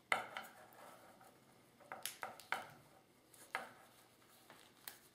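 Wooden embroidery hoop knocking and clicking lightly against the tabletop as it is handled: a string of irregular light taps, the sharpest right at the start.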